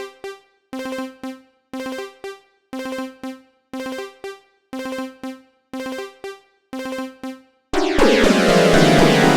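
Synthesized MIDI ringtone: a short two-note electronic figure repeats about once a second, eight times. Near the end a much louder, denser synth track comes in.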